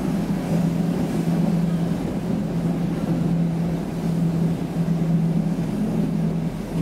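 Stockholm Metro C6 subway car running, heard from inside the passenger compartment: a steady rumble of wheels and motors with a constant low hum.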